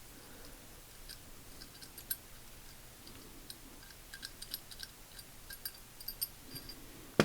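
Small steel parts of a Craftsman 99964 ratchet (pawl, ball and spring) clicking and tapping lightly as they are worked back into the ratchet head, with a run of quick clicks in the second half and one sharper click near the end.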